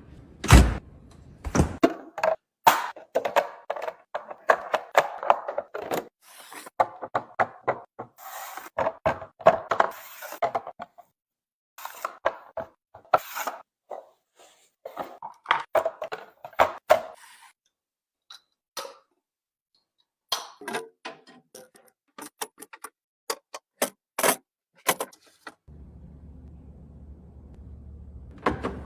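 Food containers, jars and bottles being handled and set down on fridge shelves: a long run of irregular knocks, clinks and rustles with short pauses, and a low hum over the last few seconds.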